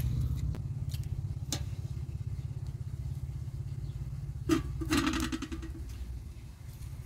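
A low, steady rumble with a rapid even pulse, like an engine idling nearby, with a few sharp snaps of dry twigs being broken by hand, the loudest about four and a half seconds in.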